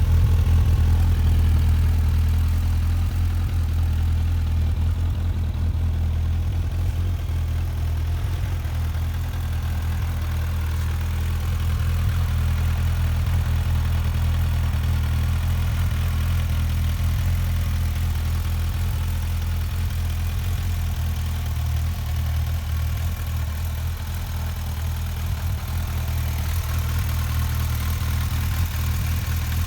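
Suzuki Bandit 1250's liquid-cooled 1255 cc inline-four engine idling steadily, with no revving.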